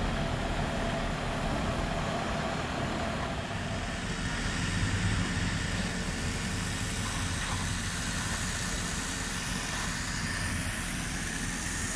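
Off-road 4x4 vehicle's engine running steadily: a low rumble under an even haze of noise.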